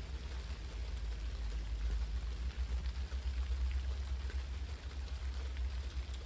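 Steady rain falling, with scattered small drips, over a low steady rumble.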